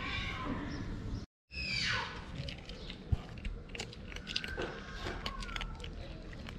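Kittens crunching dry cat kibble, a quick run of small crunches and bites. Just after two seconds in, a cat gives one short falling meow.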